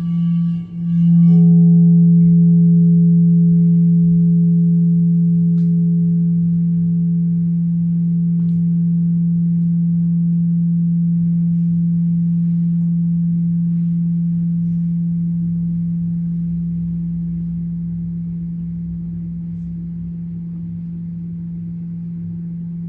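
Low, steady ringing tone with a higher overtone, struck again just over a second in and then slowly fading.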